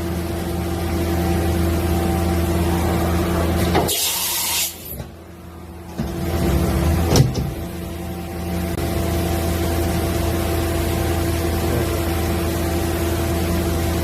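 Mazak Variaxis 630-5X II five-axis CNC machining center powered up, humming steadily from its pumps and fans. About four seconds in there is a short loud hiss, like a blast of compressed air. The hum then drops away for a moment and comes back, with a sharp knock a little after seven seconds.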